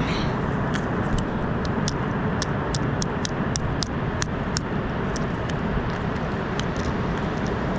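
Steady low rumble of ocean surf and wind, with a run of sharp little clicks and cracks as a mussel shell is pried and torn apart by hand.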